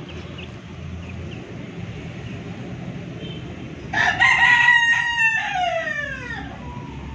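A rooster crows once, about four seconds in: one long call that falls in pitch at the end.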